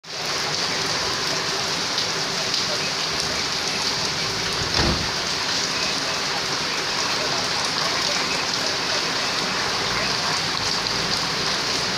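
Steady rain falling and pattering on the ground, with one dull thump just before five seconds in.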